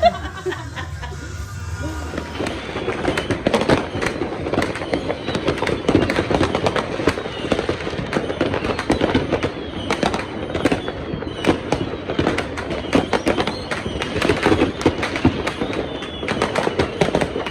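Many fireworks and firecrackers going off, a dense run of crackling pops several times a second with no break, starting about two seconds in.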